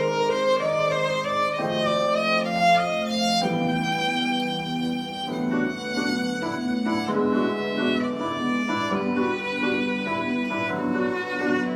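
Instrumental passage of live acoustic music: a bowed string melody of held and moving notes over a lower, rhythmically repeating accompaniment, with no singing.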